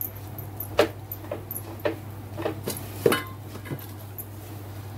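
Silicone spatula stirring and scraping moong dal filling around a frying pan, giving irregular soft knocks and scrapes over a steady low hum.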